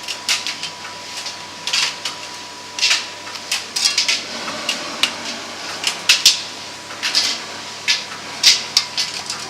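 Miele T5213 tumble dryer drum turning with laundry tumbling inside: irregular knocks and clatter, several a second, over a low steady motor hum.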